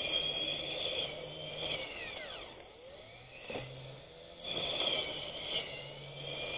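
Electric grass cutter's motor whining at high speed. About two seconds in its pitch falls and it goes quieter as it winds down, then it speeds up again a little past the middle.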